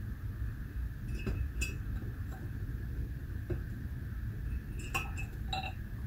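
Light clicks and clinks as a large glass telescope mirror is set down and shifted into its mirror cell, scattered across several seconds with the clearest chink about five seconds in, over a steady low background hum.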